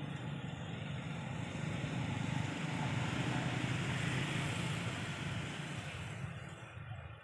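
Engine rumble of a passing vehicle, growing louder to a peak mid-way and then fading away near the end.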